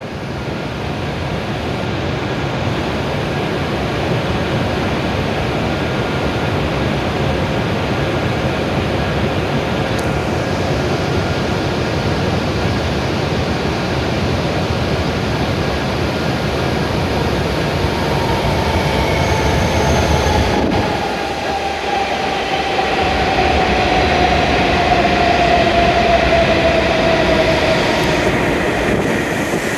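E7-series Shinkansen train pulling into the platform: a steady rumble of the train running. A whine sinks slowly in pitch over the last ten seconds as the train slows to a stop.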